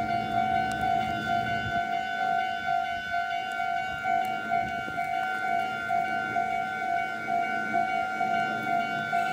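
Japanese railway level-crossing alarm ringing with the barriers down: a steady electronic tone pulsing quickly and evenly.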